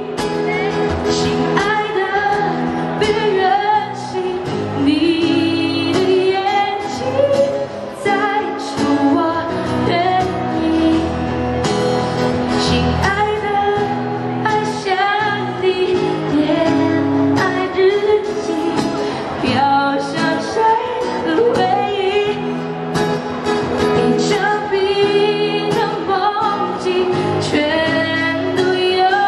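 A woman singing a pop song live into a handheld microphone, accompanied by guitar. The vocal line runs continuously with short breaths between phrases.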